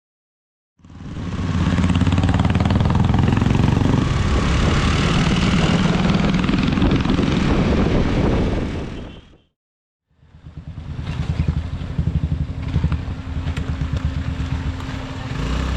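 A motor vehicle's engine running, with rushing wind noise. It stops abruptly about nine seconds in and starts again a moment later.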